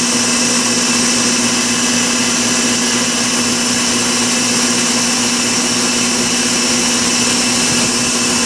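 3 HP rotary screw air compressor and its electric drive motor running steadily under load at about 100 PSI: an even, unbroken drone with a strong low hum and a high whine above it.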